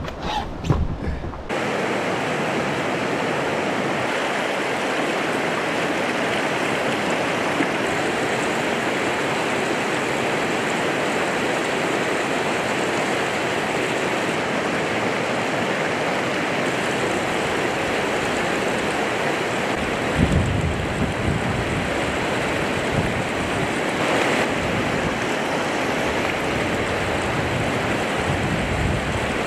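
Whitewater river rapids rushing, a steady, even rush of water that starts abruptly about a second and a half in. From about two-thirds of the way through, wind buffets the microphone in low gusts over the water.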